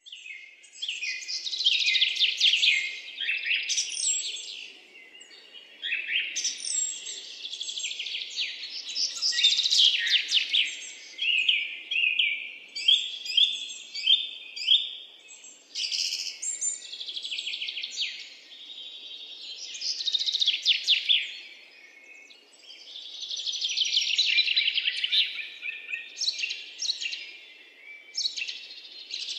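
Birds singing: phrases of rapid, high chirps and trills, with brief lulls between them.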